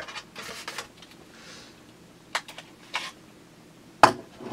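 Handling of a plastic CO2 airsoft pistol: a brief rustle, then scattered light clicks, with sharper clicks near the end as its grip cover is opened and shut.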